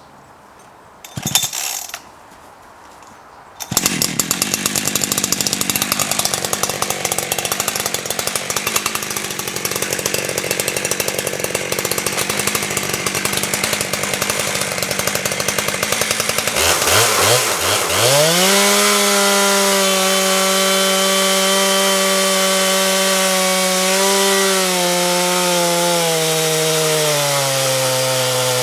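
Two-stroke chainsaw on a log mill, started after a couple of short bursts and running at low revs from about four seconds in. At about 17 seconds it is opened up to full throttle with a steep rise in pitch and then cuts through the log, the engine note sagging a little under the load near the end.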